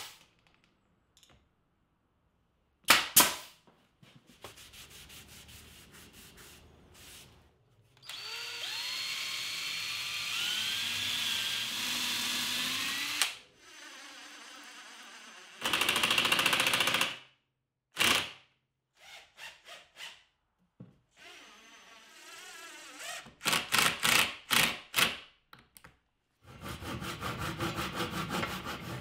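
Woodworking tools working on a 2x4 frame corner in turn. A pneumatic brad nailer fires sharp shots at the start and about 3 s in. A cordless drill/impact driver runs in several bursts, its motor pitch rising, from about 8 s on. Quick hand-saw strokes start near the end as a wooden plug is trimmed flush.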